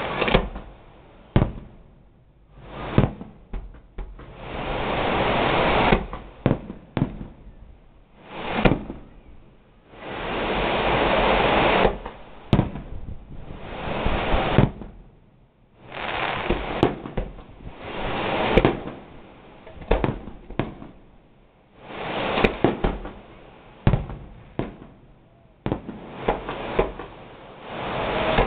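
Fireworks display: aerial shells bursting in sharp bangs, many in a row, mixed with stretches of dense rushing noise that last a second or two.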